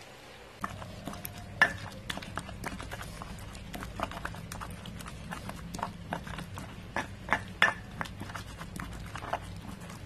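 Stone pestle (ulekan) knocking and scraping in a stone mortar (cobek), crushing a wet sambal terasi paste: irregular clacks, several a second, starting about half a second in, over a low steady hum.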